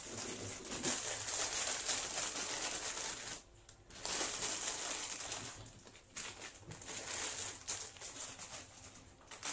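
Plastic packet of water crackers crinkling as it is handled, with a short pause about a third of the way in.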